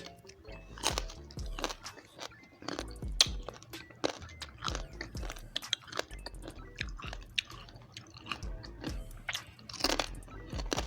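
Close-up crunching and chewing of crispy pata: the deep-fried pork knuckle's crackling skin crackles irregularly between bites, with faint background music underneath.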